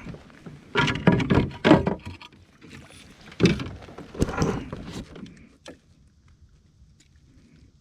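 Knocks, bumps and scrapes of gear being handled against a kayak, a cluster of them in the first few seconds, then they die away.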